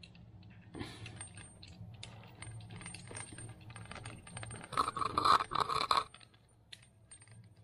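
Small metal fittings of a kitchen mixer tap clinking and scraping as a nut is screwed onto the tap's threaded fitting by hand. About five seconds in there is a louder, ringing run of rapid clinks lasting about a second.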